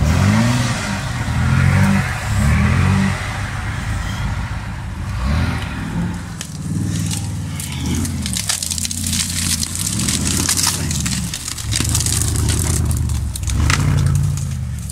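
Off-road 4x4 engines revving up and down again and again, each blip of throttle rising and falling in pitch, as the trucks crawl over rough ground. From about the middle on, twigs and dry brush crackle and snap under the tyres.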